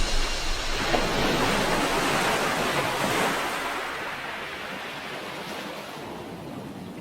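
Sea waves washing onto a beach, a steady rushing hiss that swells in the first few seconds and then fades gradually.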